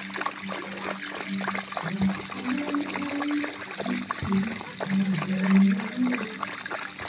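A jet of water from a hose splashing into a shallow plastic dish as several dogs lap from it, a steady wet hiss dotted with many quick small splashes and laps. A low hum comes and goes underneath.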